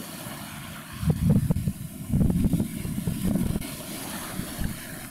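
Wind buffeting the microphone outdoors: uneven low rumbling gusts, strongest from about one to three and a half seconds in.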